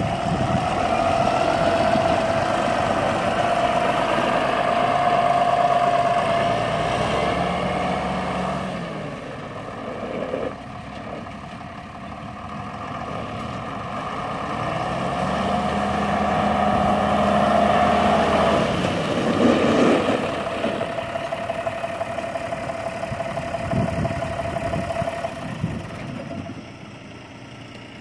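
1998 John Deere 7405 farm tractor's diesel engine running as it drives away, with a steady whine over the engine note. It grows quieter as the tractor gets farther off about ten seconds in, comes up again as it drives back, and drops away near the end.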